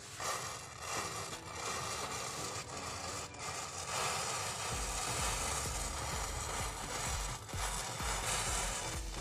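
A row of wooden matchsticks catching one after another and burning, a steady fizzing crackle as the flame spreads and flares. About halfway through a low rumble joins in.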